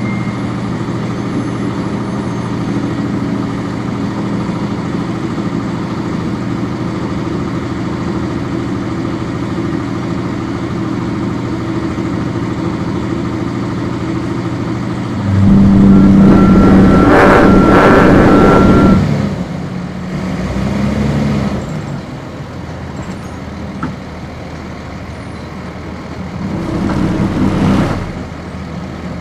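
Cummins ISC diesel engine of a 1999 NovaBus RTS transit bus idling steadily, heard on board. About halfway through a loud hiss of air lasts three or four seconds, and a shorter hiss comes near the end.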